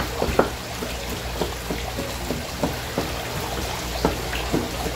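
Kitchen knife cutting wet, raw sea anemone on a plastic cutting board: short, irregular knocks about three a second, over a steady low hum.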